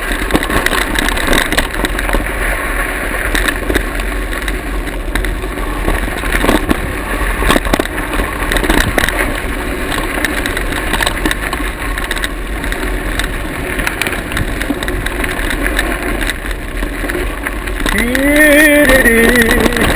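Mountain bike riding fast down a dirt forest trail: continuous tyre and wind rush with frequent rattling knocks from the bumps. Near the end a man starts singing a wavering la-la tune.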